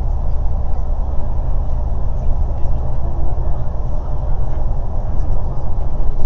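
Steady low rumble of a moving bus heard from inside the cabin: engine and road noise at cruising speed.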